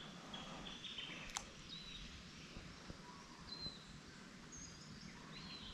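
Faint ambience with a few short, high bird chirps scattered through it, and a single sharp click about a second and a half in.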